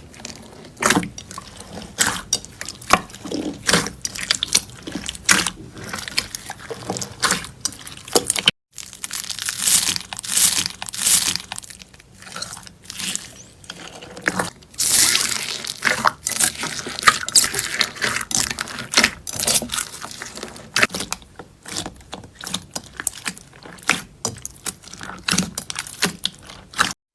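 Slime being squeezed and pressed by hand: a dense run of wet clicks, pops and crackles, with a brief cut to silence about eight and a half seconds in.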